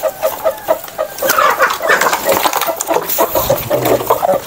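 Bangkok game chickens clucking at feed in a quick, even run of short calls, about four or five a second, with one louder, higher call between one and two seconds in. Sharp taps of beaks pecking grain are heard throughout.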